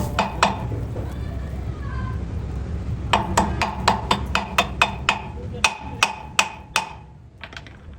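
A hammer strikes metal in a run of sharp, ringing blows: two near the start, then about a dozen more at roughly three a second from midway, stopping near the end. A steady low rumble runs underneath and fades near the end.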